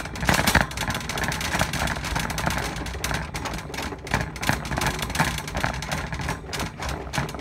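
Shopping cart with a red plastic basket on a metal frame rattling and clattering as it is pushed along, in a dense, irregular run of clicks, heard from a phone riding in the cart.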